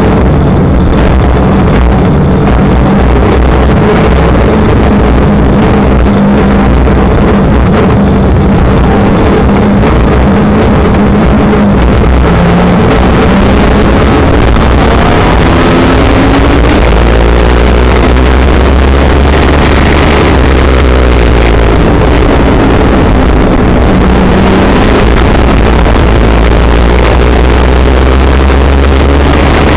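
Legends race car's Yamaha motorcycle four-cylinder engine running hard at racing speed, heard loud from inside the cockpit. Its pitch rises and falls with the throttle through the turns, and other cars' engines are mixed in.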